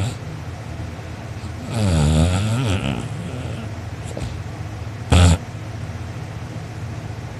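A sleeping person snoring loudly: one long snore about two seconds in, then a short, loud snort about five seconds in, over a steady low hum in the background.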